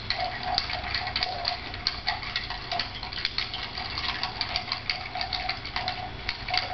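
Ice cubes clinking against a glass as a bar spoon stirs them, quick irregular clinks with a light ringing of the glass. The cocktail is being stirred over ice to chill and dilute it.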